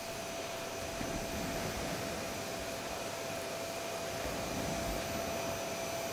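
Volta vacuum cleaner running steadily: an even rush of air with a steady whine.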